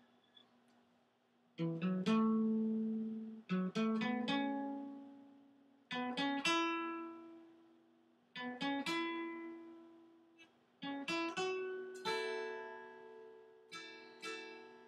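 Acoustic guitar played alone: strummed chords in groups of quick strokes, about every two to two and a half seconds, each left to ring and fade.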